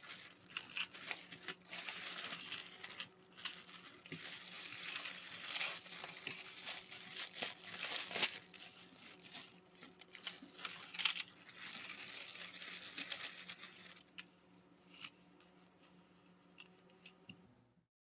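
Irregular rustling and crinkling handling noise with scattered light clicks. It quietens about 14 seconds in to a few faint clicks over a low hum, then cuts off just before the end.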